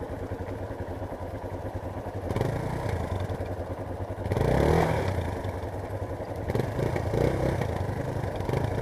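Yamaha Serow single-cylinder trail motorcycle engine running at low revs while riding slowly, picking up revs about halfway through.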